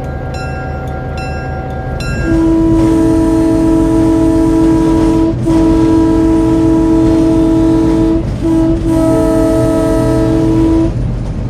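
Train wheels clacking over jointed rail in a steady rhythm. About two seconds in, the train's horn sounds a chord in four blasts, long, long, short, long: the standard grade-crossing signal.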